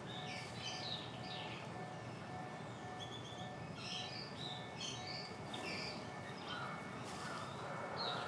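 Small birds chirping, many short high chirps scattered throughout, over faint steady background noise with a low continuous hum.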